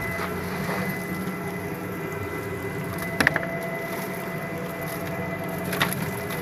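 Screw press running steadily as it squeezes shrimp shells, a continuous machine drone with a thin steady whine. Two sharp cracks stand out, about three seconds in and near the end.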